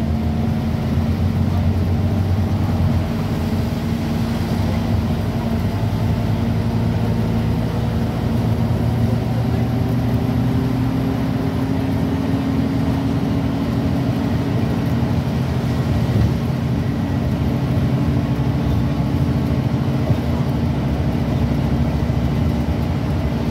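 Scania N230UB OmniCity bus's five-cylinder diesel engine running steadily at speed, with road and tyre noise, heard from inside the passenger cabin. The engine note rises a little about ten seconds in.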